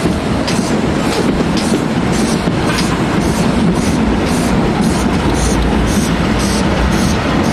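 Steam locomotive running under way, heard from on board: a steady beat of exhaust chuffs from the chimney, about three a second, over the rumble of the engine and wheels on the track.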